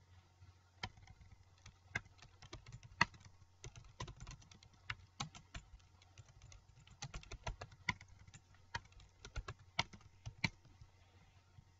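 Typing on a computer keyboard: irregular keystroke clicks, which stop near the end.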